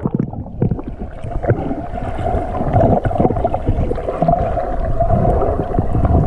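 Muffled underwater sound picked up by an action camera held by a swimmer: low rumbling of water moving past the housing from his strokes, under a steady drone. The sound goes dull as the camera dips under at the start and opens up again as it breaks the surface at the end.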